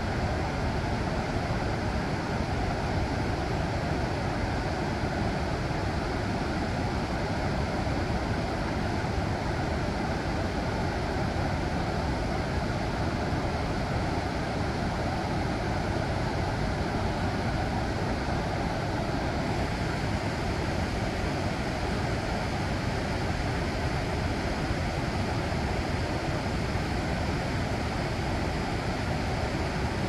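Shallow river water running over a rocky bed: a steady, even rush of flowing water.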